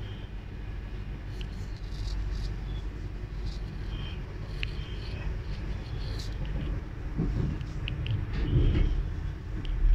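Passenger train running, heard from inside the carriage: a steady low rumble with small scattered clicks and rattles. The rumble swells with heavier thuds from about seven seconds in.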